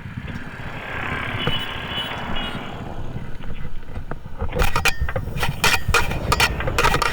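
Motorcycle ride heard from the rider: a steady low engine and road rumble, with wind noise on the microphone. In the last two to three seconds comes a run of short, sharp crackling knocks.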